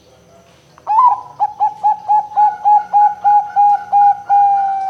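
Zebra dove (perkutut) cooing. A strong opening note about a second in is followed by a quick run of about a dozen short coos, roughly four a second, which merge into a long drawn-out note that slowly falls in pitch.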